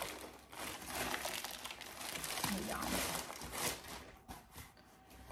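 Crinkly packaging rustling and crackling as a parcel is unwrapped and its contents handled. The rustle dies down near the end.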